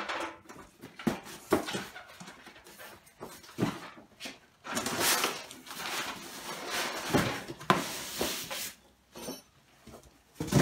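Cardboard carton and polystyrene foam packing rubbing and scraping against each other as a boxed bandsaw is tipped out and slid from its carton, with a few knocks from the box being handled.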